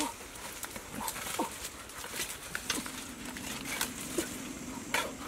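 Dry twigs and leaf litter crackling and snapping as someone pushes through brush, with a dog's low, drawn-out whine over the second half.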